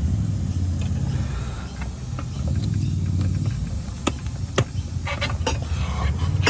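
Steady low rumble with a few sharp metallic clinks of hand tools against suspension parts, one about four seconds in, another half a second later, and a quick run of clicks just after five seconds.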